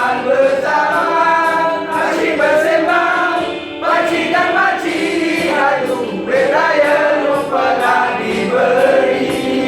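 Background music: a choir of voices singing a song with a light, regular beat.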